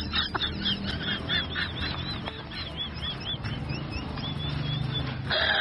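Birds calling: a fast series of short, high, arching calls, about three or four a second, over a low steady hum.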